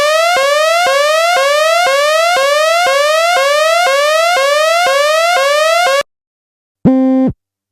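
Electronic alert tone: a buzzy, whooping sweep rising in pitch about twice a second, repeating for about six seconds before cutting off. Near the end comes a short, lower buzzing beep.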